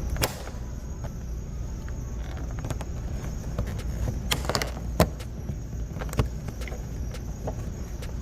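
Plastic door trim on a car's door being pried loose and handled: a few scattered sharp clicks and snaps, the loudest about five seconds in, over a steady low rumble.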